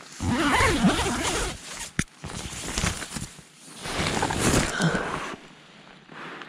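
Tent door zipper being pulled open in three strokes, with the nylon fabric rustling, and a sharp click about two seconds in.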